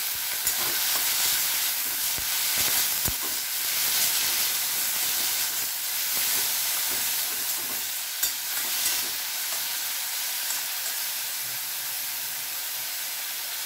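Chopped kolai shaak greens sizzling in hot oil in a metal kadai, with a spatula stirring and scraping against the pan for the first nine seconds or so. After that the steady frying sizzle carries on alone.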